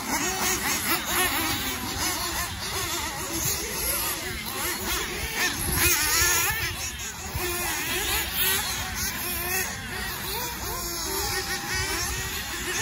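Several nitro RC off-road cars racing together. Their small glow-fuel two-stroke engines whine, rising and falling in pitch as they accelerate and lift through the corners.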